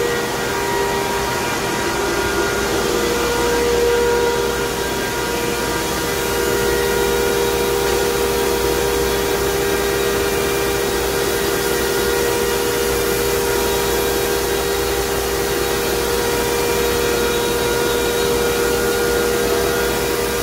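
Machinery of a plastic pelletizing line, its blowers and motors, running steadily: a constant drone with several steady tones over an even hiss.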